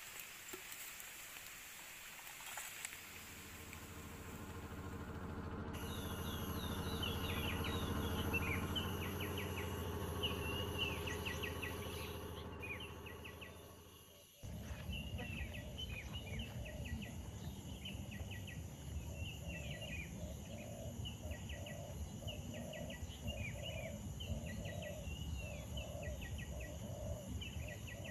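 Outdoor ambience of small creatures chirping: short high chirps repeat over and over. For the first half they sit over a steady low hum that swells and fades. About halfway through the sound changes abruptly to a low rumble, with the chirping going on above it and a pulsing call about twice a second.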